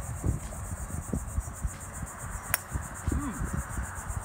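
Crickets trilling steadily in a high, evenly pulsing chirr, over irregular low rumbling thumps; a single sharp click about two and a half seconds in.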